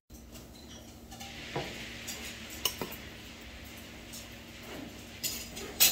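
Dishes and cutlery clinking at a meal: a few scattered clinks over a faint steady hiss, with the loudest clatter near the end.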